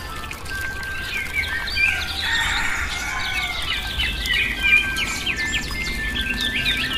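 Many small birds chirping in quick, overlapping calls, over soft instrumental relaxation music with long held notes.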